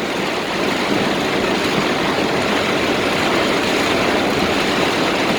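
Heavy downpour rain beating on a slowly moving car, heard from inside, a dense steady hiss mixed with the car's running noise.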